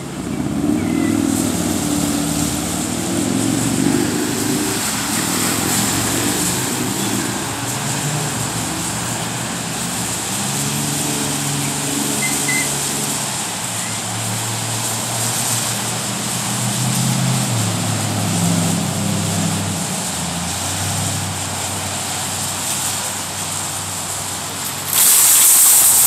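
Road traffic: vehicle engines running and pulling away, their pitch stepping and gliding up and down, over a steady hiss of tyre and traffic noise. Near the end a loud rush of noise lasts about a second.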